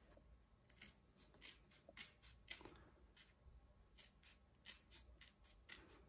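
Small scissors snipping through a 3M double-sided adhesive mounting strip to trim it to width: a series of faint, short snips, about two a second.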